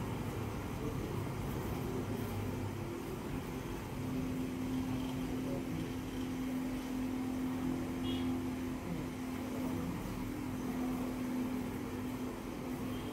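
Steady mechanical hum over a background hiss, with a low droning tone that comes in clearly about four seconds in and holds.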